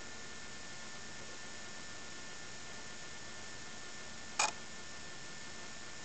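Steady hiss with a faint hum from a camcorder's recording, with no other activity, and one short sharp click about four and a half seconds in.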